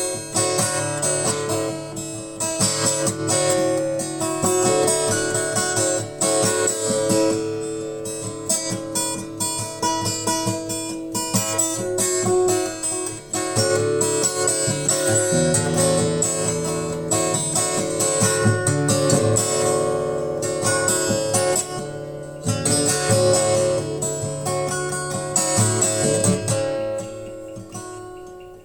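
Acoustic guitar music, plucked and strummed, fading out near the end.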